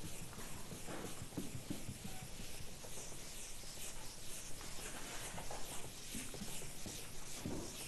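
Writing on a lecture board: a run of faint, short scratching strokes, a few each second, over the low hum of the room.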